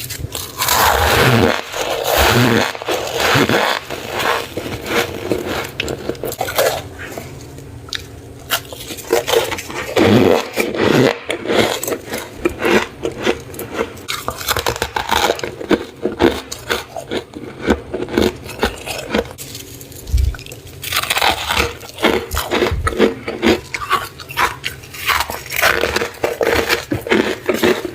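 Freezer frost being scraped and bitten close up: a dense run of crisp crunches and scrapes, busiest at the start and over the last several seconds.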